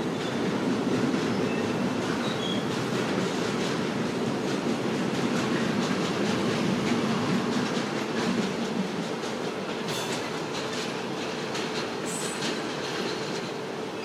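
Freight train of container and tank wagons rolling past, wheels rumbling and clattering steadily over the rails. Late on come a few sharp clicks and a brief high wheel squeal, and the noise eases slightly near the end as the last wagons go by.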